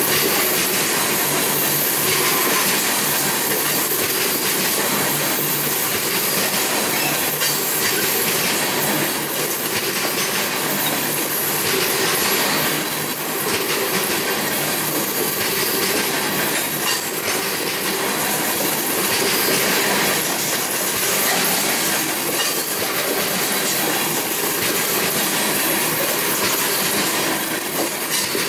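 Freight train of steel gondola cars rolling past: a loud, steady rolling noise of wheels on rail, with occasional clacks as the cars' wheel sets go by.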